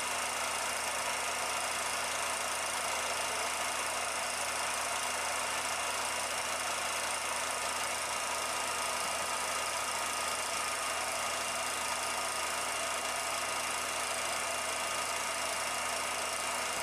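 Steady, even hiss with a few faint steady tones and no separate events: the background noise of an old 16mm optical film soundtrack.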